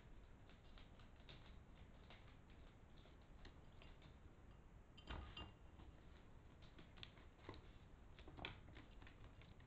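Faint, scattered small clicks and rustles of a pet rodent moving about on cage bedding, with a louder burst of scratching about halfway through.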